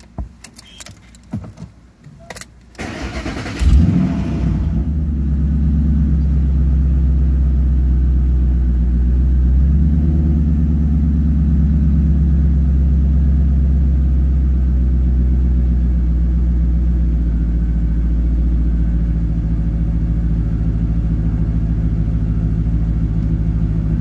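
Ford Mustang engine cold-started: a few key clicks, the starter cranks briefly about three seconds in, and the engine catches with a quick rev. It then runs at a steady fast cold idle that eases slightly lower later on.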